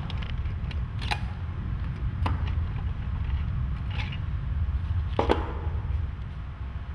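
Slide projector's casing being handled and its cover lifted off: four sharp clicks and knocks about a second apart, the last the loudest, over a steady low rumble.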